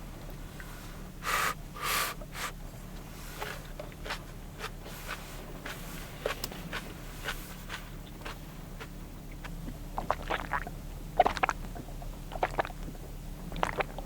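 Eating sounds: two short breathy sniffs or slurps near the start, then scattered small clicks and taps of chopsticks and tableware, thickest from about ten seconds in, over a low steady hum.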